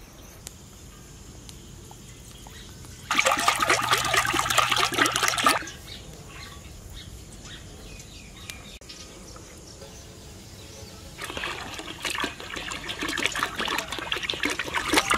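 Cooking oil poured from a plastic jerry can into a large iron kadai, splashing and gurgling. A loud pour lasts about two and a half seconds, starting about three seconds in; then it goes quiet, and from about eleven seconds in the pouring starts again and grows louder.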